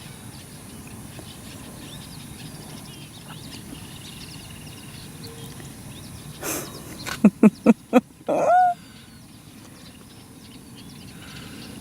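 Small birds chirping faintly throughout. About two-thirds of the way in, an animal gives four short, loud calls in quick succession, then one longer call that rises and falls in pitch.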